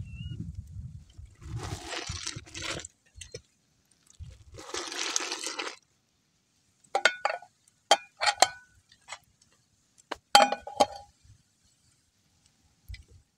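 Two short bursts of rushing hiss, then a run of sharp metallic clinks with a brief ring, as metal utensils strike a cooking pot being tended while it boils over.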